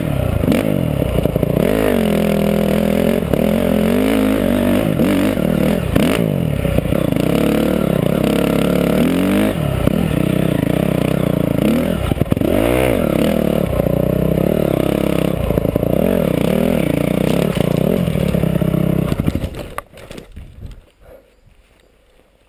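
Dirt bike engine revving up and down with the throttle while being ridden hard. About twenty seconds in, the bike goes down and the engine cuts out, leaving only faint rustling.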